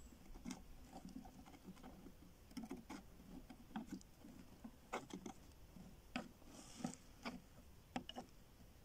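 Faint, irregular light clicks and taps of a plastic toy mammoth skeleton being handled and its pieces pressed into place, with a brief soft rustle about two-thirds of the way through.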